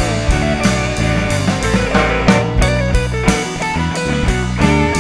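Instrumental rock music: electric guitars and bass over a drum kit keeping a steady beat, with no singing.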